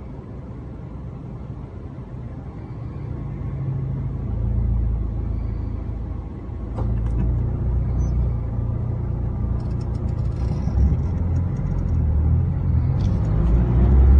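Low rumble of a car heard from inside its cabin while it waits in traffic, growing louder near the end as the car pulls away, with a few faint clicks.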